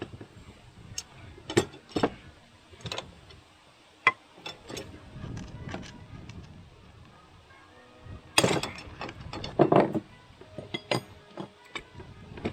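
Metal clicks and taps from the piston, wrist pin and connecting rod being handled and worked into line with the set screw, with two louder, longer clattering scrapes about two-thirds of the way through.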